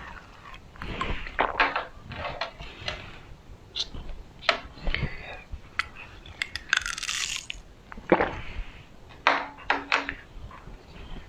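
Close-miked ASMR eating and drinking mouth sounds: an irregular string of crunches, wet clicks and sips, with a short hiss about seven seconds in.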